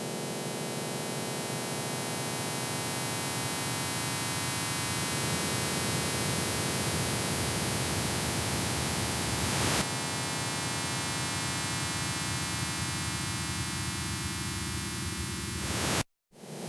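Harsh electronic noise music: a dense wall of hiss and buzzing hum threaded with many steady tones. It shifts in texture about five and ten seconds in, then cuts off abruptly near the end and starts again a moment later.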